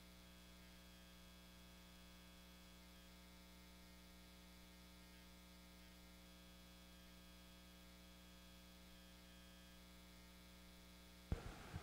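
Near silence, with only a faint, steady electrical mains hum. A brief, soft noise comes near the end.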